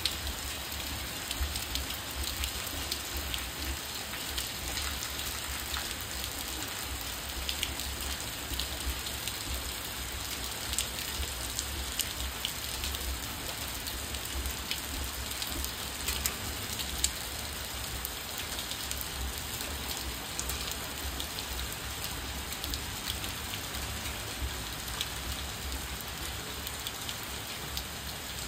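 Steady rain falling on wet pavement and trees, with many separate drop hits standing out from the even hiss.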